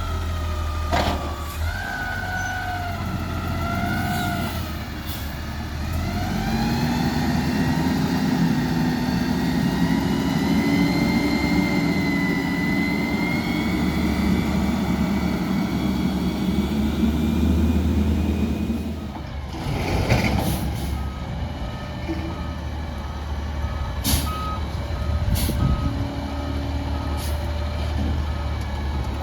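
Peterbilt 320 garbage truck's diesel engine revving up and holding at high revs for several seconds, then dropping back. A short hiss follows, then the backup alarm beeps steadily about once a second as the truck reverses.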